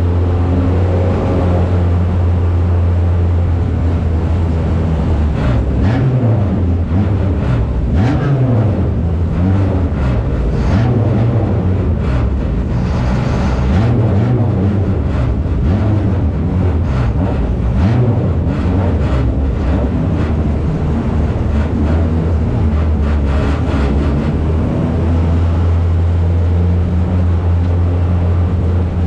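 1-litre stock car engine heard from inside the cockpit, running steadily at low revs, then revving up and down through the middle with scattered knocks and rattles from the car, before settling back to a steady low run near the end.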